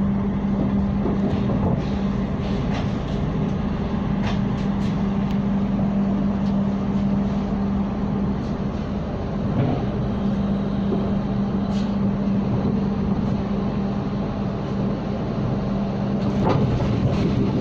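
Interior noise of a moving passenger train coach: a steady rumble of wheels on the rails under a constant low hum, with a few faint clicks and knocks scattered through it.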